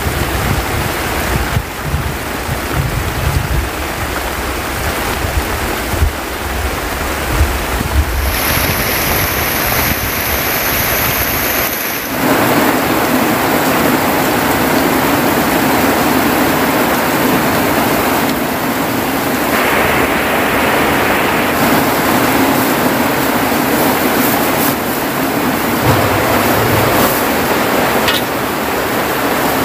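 Heavy rain pouring steadily off a thatched shelter roof, with wind rumble on the microphone for the first twelve seconds or so. It then changes suddenly to a steady, brighter hiss of heavy rain heard from inside a wooden hut.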